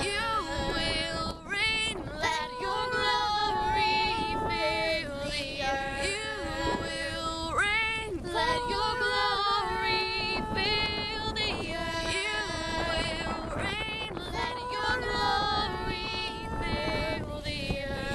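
Three girls singing a cappella in harmony, with wind buffeting the microphone underneath the voices.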